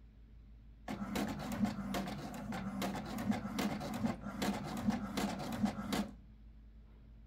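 HP DeskJet 2600 inkjet printer printing a page: the print-head carriage shuttles back and forth in quick strokes over a steady motor hum as the sheet feeds out. It starts about a second in and stops about a second before the end.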